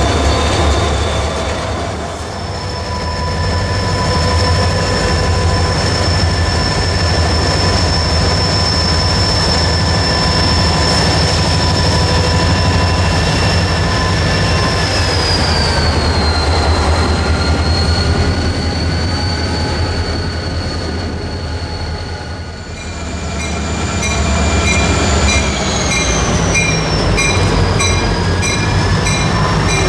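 Two EMD SD40-2 diesel-electric locomotives with turbocharged 16-cylinder 645 engines passing while pulling a freight train: a steady low engine drone under high whining tones that slide down in pitch about halfway through, then pulsing high squeals from the wheels and rails near the end.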